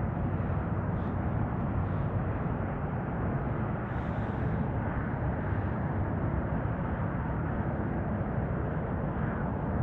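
Steady wind rumbling across the microphone on open water, an even low noise without pauses.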